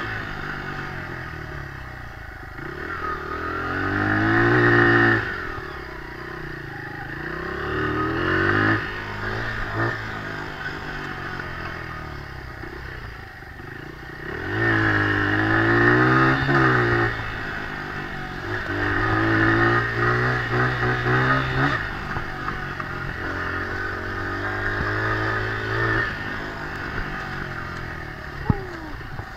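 Dirt bike engine being ridden, its revs rising and falling over and over, with several louder pulls of throttle between lower-rev stretches.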